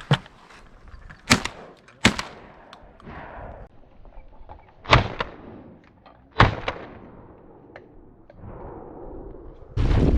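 12-gauge shotgun shots at incoming ducks: five shots over about six and a half seconds, spaced unevenly, with wind haze between them. Near the end a loud, steady rush of wind hits the microphone.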